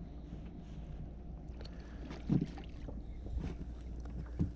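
Low wind rumble on the microphone, with a few soft knocks of movement in a small plastic boat. The loudest knock comes about two seconds in.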